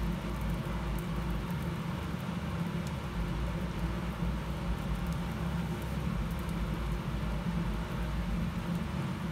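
Julienned vegetable strips frying in oil in a pan: a steady sizzle with a few faint crackles, over a steady low hum.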